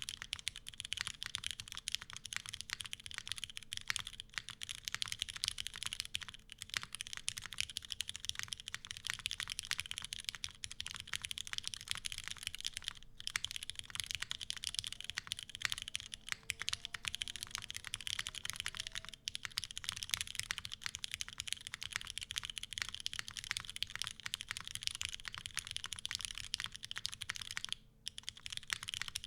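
Steady fast typing on a Bias V2 mechanical keyboard with lubed retooled Cherry MX Black switches: a dense stream of keystrokes, broken by a few short pauses.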